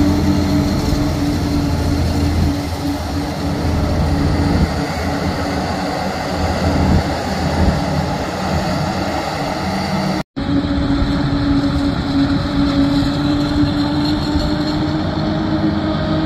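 John Deere 9800i self-propelled forage harvester running steadily under load, chopping maize and blowing it into a trailer, together with the engine of the tractor hauling alongside. The sound drops out for an instant about ten seconds in, then carries on unchanged.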